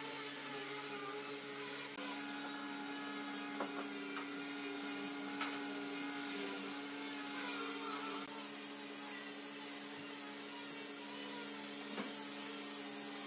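Gravity-cup compressed-air spray gun hissing steadily as it sprays finish onto bare pine, over a steady hum, with a few light clicks.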